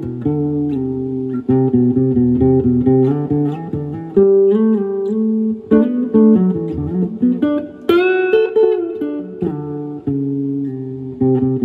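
Electric guitar played through a Fender Princeton Chorus 2x10 solid-state amplifier: a riff of picked single notes and chords. There is a bent note a little past the middle and a bright struck chord about eight seconds in.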